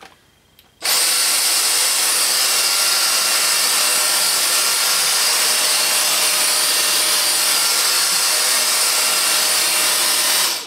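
Dyson DC35 Digital Slim cordless vacuum cleaner switched on with its trigger, its digital motor and motorised floor head running on carpet: a steady rush of air with a thin high whine. It starts suddenly about a second in and stops instantly when the trigger is released, just before the end.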